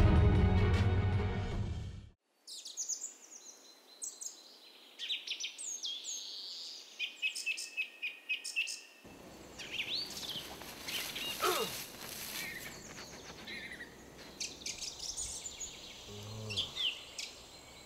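Music that cuts off about two seconds in, then woodland ambience of many birds chirping and whistling in short, high calls over a faint steady background hiss.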